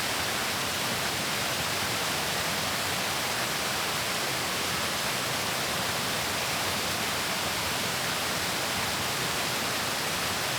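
Waterfall and creek water rushing: a steady, unbroken hiss of falling water.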